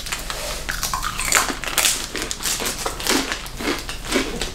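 Crunchy Japanese snacks being chewed close by, with snack wrappers crinkling: an irregular run of crackles and crunches.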